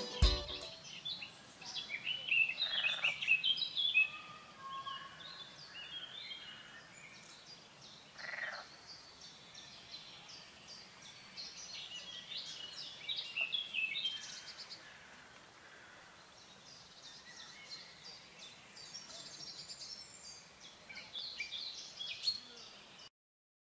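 Wild birds chirping and singing over a faint outdoor hiss: many short chirps and trills overlapping, louder in patches. All sound cuts off suddenly near the end.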